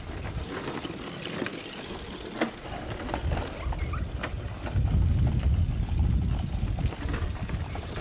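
Hard plastic wheels of kids' big-wheel-style tricycles rumbling and grinding over asphalt, with scattered clicks and knocks. The rumble grows louder about five seconds in as a trike passes close.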